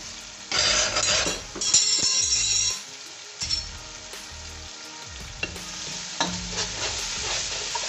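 Onion-and-tomato masala sizzling in hot oil in a pot while a spoon stirs it: two loud surges of sizzling and scraping in the first three seconds, then a steadier, quieter sizzle with a few light clicks of the spoon.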